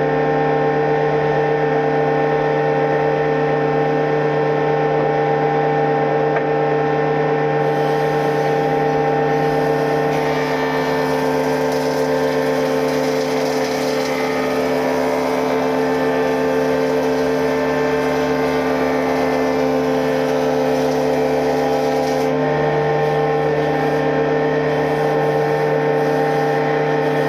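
Woodworking machine in a sawmill running steadily with a loud, even hum. A brighter hissing noise joins about a third of the way in and drops away near the end.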